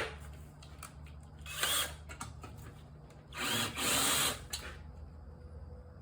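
A power drill running in two short bursts, the second about a second long, working the screw that holds the mower engine's dipstick tube.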